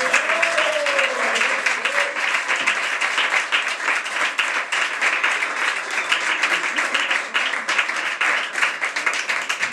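Audience applauding at the end of a live flamenco song, a dense, steady clatter of many hands, with a voice calling out over it in the first couple of seconds.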